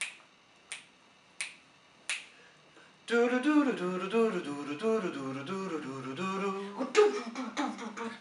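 Four evenly spaced finger snaps counting in, a little under a second apart. Then, about three seconds in, several voices start singing wordless a cappella harmony over a low bass part.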